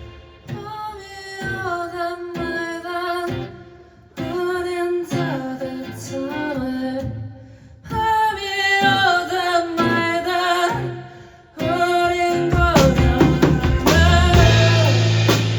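Live acoustic band music: a singer's phrases over acoustic guitar, broken by short pauses. A fuller accompaniment with a deeper low end comes in about twelve seconds in.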